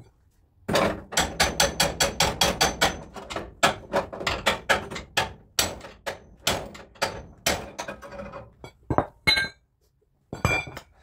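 Hammer blows on car body sheet metal: a rapid run of strikes, several a second, that slows after a few seconds, then a few separate blows near the end, some with a short metallic ring.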